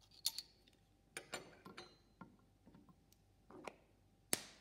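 A series of light glass taps and clinks as a glass test tube knocks against a small glass jar of salt while salt is added to it, then a sharp, louder clack near the end as the tube is set back into a wooden test-tube rack.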